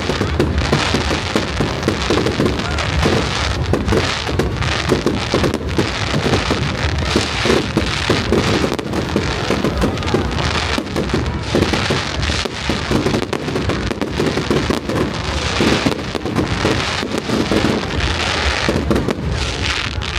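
Fireworks display: a continuous dense barrage of bangs and crackling from exploding shells and crackling stars, loud and without let-up.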